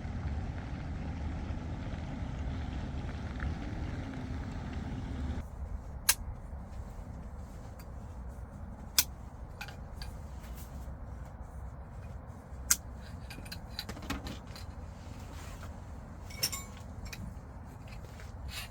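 A steady low rumble that cuts off about five seconds in, followed by scattered sharp clicks and knocks, with four louder ones spread a few seconds apart, like objects being handled.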